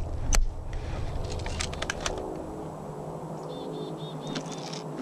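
Outdoor ambience: sharp handling clicks and low wind rumble in the first two seconds, then a quick run of five high chirps from a small bird about three and a half seconds in, over a faint steady hum.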